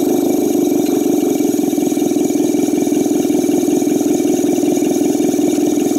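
Compressed air blowing through a repaired VAF Instruments flowmeter, spinning its measuring element: a steady, loud whirr with air hissing through it. This is a bench test, and the meter is running freely.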